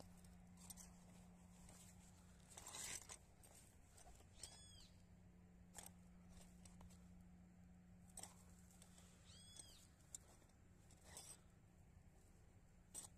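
Near silence: faint rustling and handling noises, with two brief high chirping calls about five seconds apart and a low steady hum that stops about nine seconds in.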